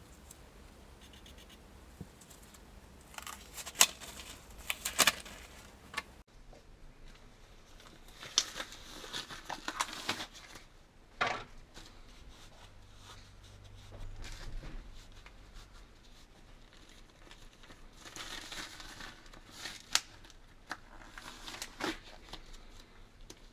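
Irregular scraping and rubbing, in bursts, with scattered sharp clicks and knocks, from hands working on small parts at a bench.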